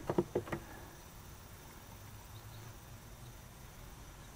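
Three or four quick light clicks and knocks in the first half second, from hands handling A/C service-port caps and hose fittings under the hood. After that there is only a faint steady hum.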